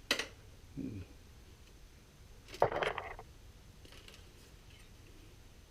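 Hand work with metal parts and tools: a sharp click at the start, a soft knock about a second in, then a brief clattering rattle of metal near the middle, the loudest sound, followed by a few faint ticks.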